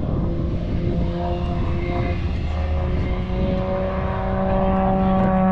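Aerobatic propeller airplane flying overhead trailing smoke: a steady droning hum that grows louder near the end, over low wind rumble.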